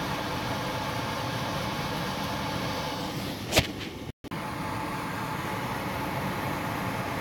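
Lennox furnace blower running steadily with the cooling on, a level whooshing hum, with one sharp knock about three and a half seconds in.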